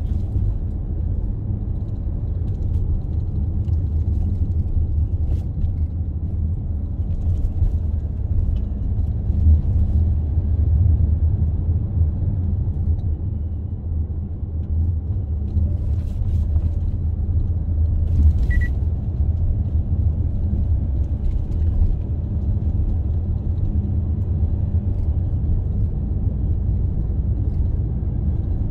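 Car driving along a road: a steady low rumble of tyre and engine noise, with a couple of short knocks a little past halfway.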